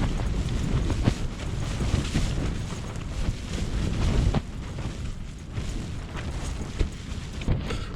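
Strong gusting wind buffeting a tent, the fabric flapping and snapping in quick irregular cracks over a constant rumble of wind on the microphone.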